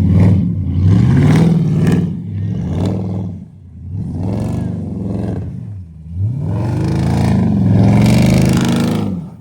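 Car engine revved hard, over and over: the pitch climbs and falls several times, with a longer held rev in the last few seconds.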